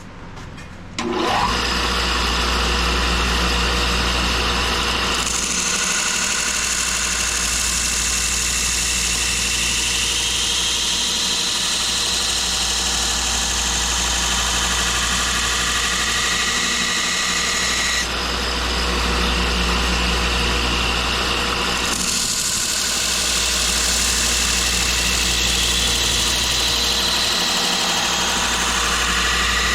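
Electric grinder switched on about a second in and running steadily with a low hum, with the hiss of steel being ground against it as a dull knife edge is rough-ground. The grinding hiss fades for a few seconds past the middle, then comes back.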